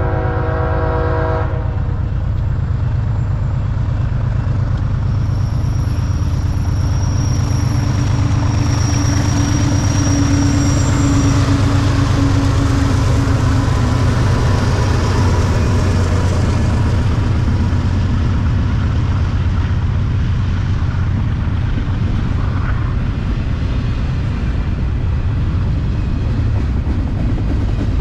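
A diesel freight train's horn chord ends about a second in, then the BNSF locomotives pass with a deep, steady diesel rumble and a thin whine, followed by the continuous rumble and rattle of double-stack container well cars rolling by.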